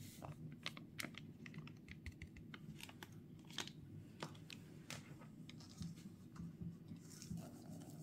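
Faint, scattered light clicks and taps as baking powder is shaken out of its packet onto flour in a plastic mixing bowl. Near the end comes a soft patter of chopped almonds being poured in.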